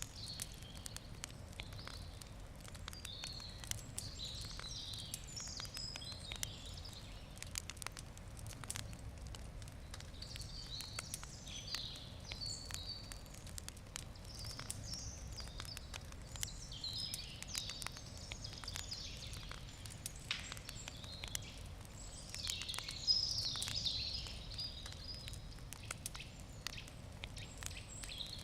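Wood fire crackling with frequent small sharp pops. Birds chirp and sing on and off over it, loudest a little past two-thirds of the way through.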